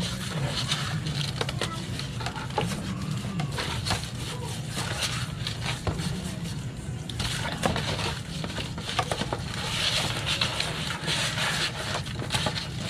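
Hands kneading and rubbing slimy eels in salt, a dense, irregular gritty crackling and squelching as the salt scours the slime off the skin. A steady low hum runs underneath.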